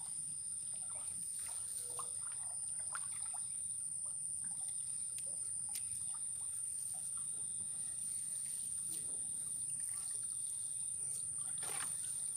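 Water trickling and splashing in small irregular plops as a wet gillnet is paid out over the side of a wooden canoe and a paddle dips. A steady high-pitched buzz runs underneath.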